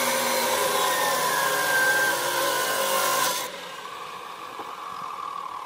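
Maktec abrasive cut-off saw's disc grinding through steel rebar, a loud harsh screech. About three and a half seconds in the cut ends and the saw's motor runs on much more quietly with a steady whine as the disc spins free.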